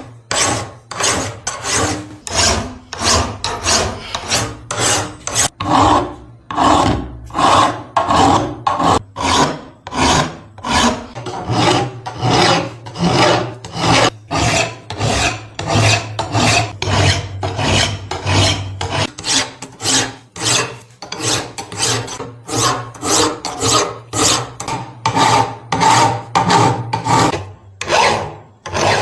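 Steady hand filing: a file or rasp drawn in repeated rasping strokes, about two or three a second.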